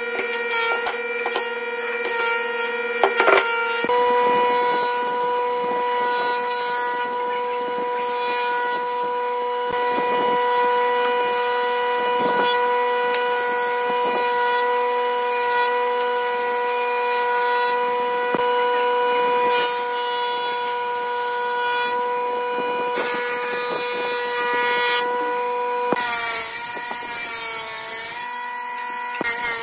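Woodworking machines running with a steady whine while boards are fed through a jointer and then ripped on a table saw, with cutting noise rising and falling as the wood passes the blades. A few sharp knocks about three seconds in.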